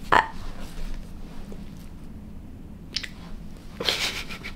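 A woman's breathy sigh right at the start, then near quiet room tone with a small click about three seconds in, and a short breath behind her hand near the end.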